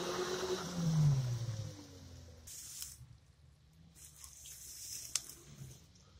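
Suzuki Vitara's engine revving as the 4x4 pulls away through mud. The pitch rises and falls about a second in, and the engine fades out after about two seconds, leaving faint clicks.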